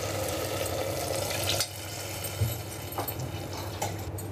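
Potatoes and lotus stem in spice masala sizzling in a pressure cooker, stirred and scraped with a metal ladle, with scattered clicks of the ladle against the pot. The sizzle drops slightly about one and a half seconds in.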